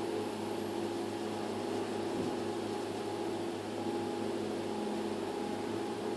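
A steady mechanical hum: a low drone with a few fixed tones over an even hiss, unchanging throughout.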